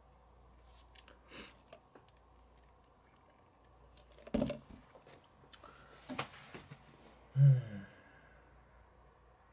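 Quiet handling noises: scattered small clicks and knocks, a sip through a straw from a plastic cup about four seconds in, and a short low hum from a person near the end.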